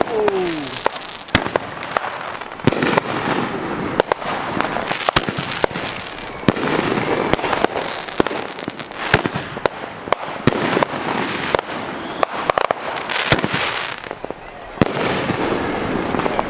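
A 500-gram consumer fireworks cake firing, irregular sharp bangs one after another over dense crackling, with a short lull near the end.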